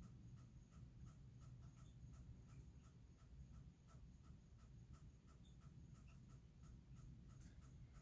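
Near silence with faint night-time nature sounds: a soft chirp repeating evenly about three times a second over a low steady hum.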